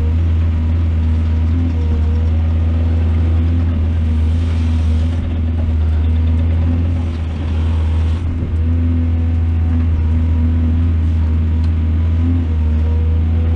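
Excavator's diesel engine running steadily with a deep, even hum. Extra hiss rises for a few seconds midway.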